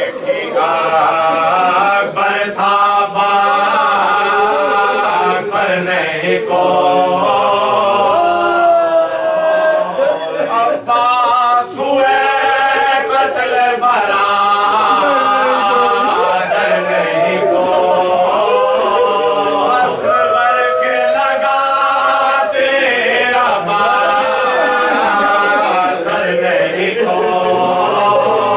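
A group of men reciting a marsiya, a Shia elegy for Imam Husain, unaccompanied. The men's voices sing in unison in a continuous, wavering melodic chant.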